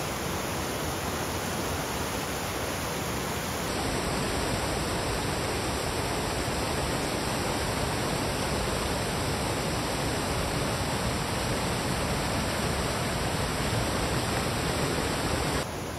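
Steady rushing of a waterfall, a dense even roar of falling water. It steps up slightly in loudness about four seconds in.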